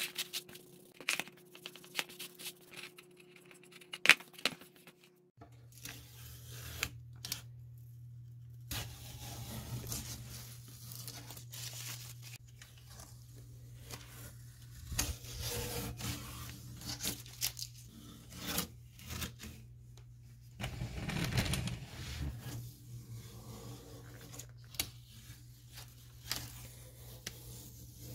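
Blue painter's tape being peeled off painted wood in a series of ripping pulls, over a steady low hum. In the first few seconds, a rag rubs on wood with several sharp knocks, the loudest about four seconds in.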